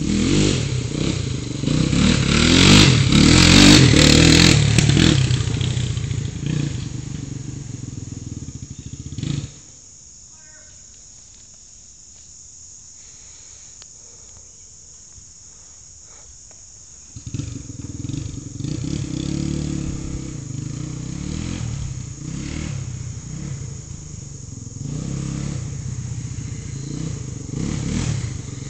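Single-cylinder engine of a Honda ATC350X three-wheeler being ridden hard on a dirt trail. It revs loudly in the first few seconds, then fades as it moves away. About nine seconds in the sound drops suddenly to a faint low hum for around eight seconds, then the engine comes back and grows louder again toward the end as it returns.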